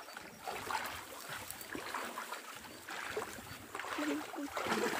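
Shallow ditch water sloshing and splashing as people wade through it, dragging a fishing net along the bank and driving fish toward it.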